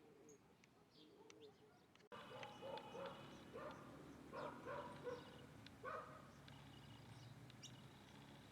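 Birds calling: faint chirps at first, then, after an abrupt cut about two seconds in, a run of short, louder calls bunched over the next four seconds, over a low steady hum.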